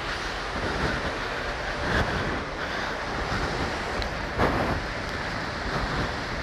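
Water rushing over a concrete river weir: a steady, even rush of noise.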